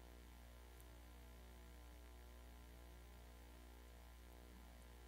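Near silence apart from a steady, low electrical mains hum.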